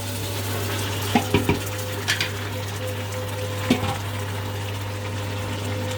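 Yogurt-marinated lamb chops going into hot oil and fried onions in an Instant Pot on sauté mode, with a steady wet sizzle over a low hum. A few sharp knocks of a utensil against the pot come between about one and two seconds in, and once more near four seconds.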